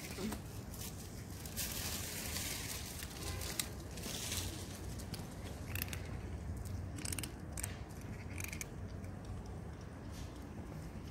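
Cats crunching dry kibble: irregular crisp crunches and clicks over a low steady rumble.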